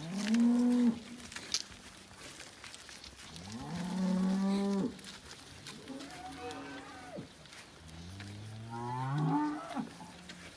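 Dairy cows mooing: about four separate moos, each rising in pitch, the loudest right at the start and two overlapping near the end.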